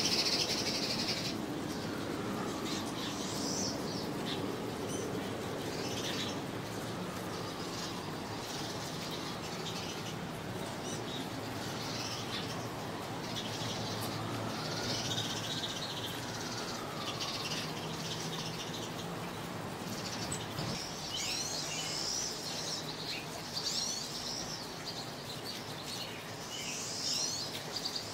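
Small songbirds chirping, short high calls scattered throughout and coming thicker near the end, over a low steady hum.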